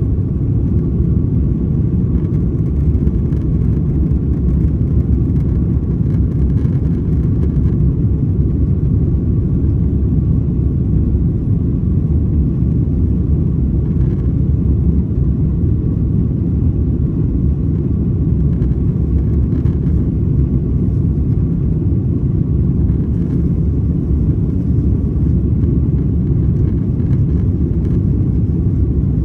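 Steady low rumble inside the cabin of an Airbus A330-200 airliner during takeoff, its jet engines at high thrust, with a faint steady whine above the rumble.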